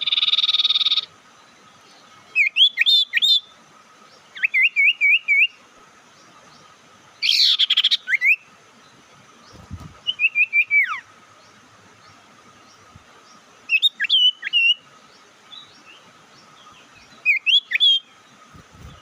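Sirtu (mantenan) bird calling, as used for a lure call: short phrases of quick up-and-down whistled chirps, repeated every few seconds. A brief harsh burst opens it, and a faint steady tone runs underneath.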